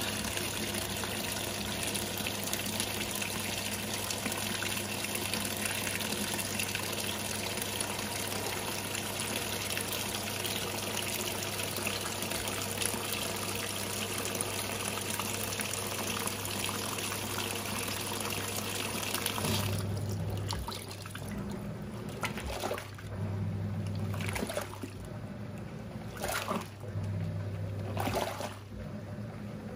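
Water pouring into the tub of a Giantex EP23113GB top-loading washing machine as it fills. About twenty seconds in, the flow cuts off and the motor starts the wash agitation: a low hum in short bursts, about every three seconds.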